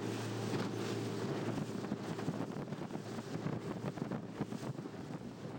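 Wind buffeting the microphone in gusts over the steady hum of a small motorboat's engine underway.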